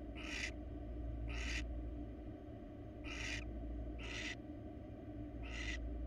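Barn owl giving rasping, hiss-like snore calls: five short bursts about a second or so apart, over a steady low hum.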